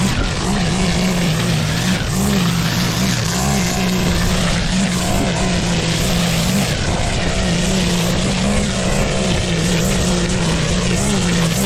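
Petrol lawn mower engine running steadily under load while cutting thick, wet grass, its note wavering slightly as the load changes, over the rush of the blade through the grass.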